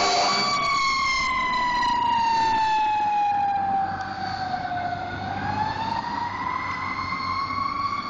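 Fire engine siren wailing, its pitch sliding slowly down for about five seconds and then climbing back up, growing fainter as the truck drives away. A louder noisy blast cuts off about half a second in.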